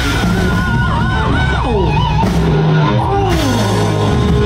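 Live rock band playing, with electric guitar and bass; the lead line holds wavering notes and slides downward in pitch a couple of times.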